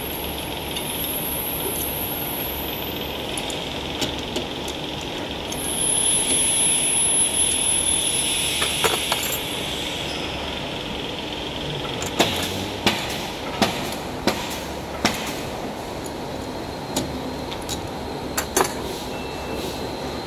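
Steady mechanical hum and hiss, with a series of sharp metallic clicks and taps in the second half as hands fit and adjust a sensor and its bracket on an automatic can seaming machine.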